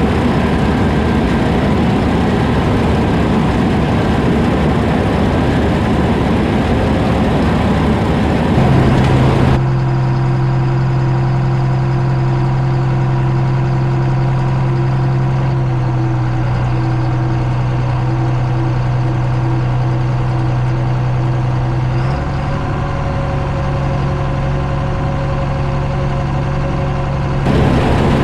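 Heavy diesel harvest machinery running steadily. About nine seconds in, the sound changes to a smoother low engine drone with a strong steady hum, which shifts slightly a little past the middle; near the end the rougher, noisier machine sound returns.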